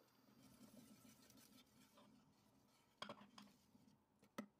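Faint stirring of thick plum purée with a wire whisk in a stainless steel pot, a soft scraping and sloshing, with two sharp clicks of the whisk against the pot about three seconds in and near the end.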